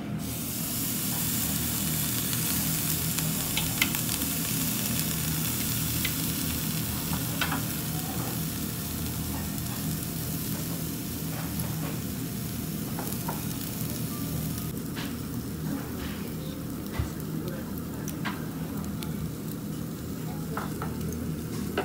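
Slices of beef rib roast sizzling on the wire mesh of a charcoal table grill. The sizzle begins at once, is strongest at first and grows softer in the second half, with a few light clicks scattered through.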